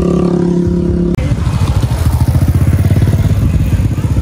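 A steady engine hum, then after a cut about a second in, a motorcycle engine running with a fast, even putter.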